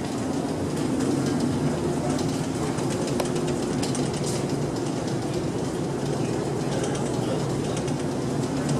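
Steady low hum and rumble of a passenger ferry's machinery heard inside its cabin deck, with a few faint ticks over it.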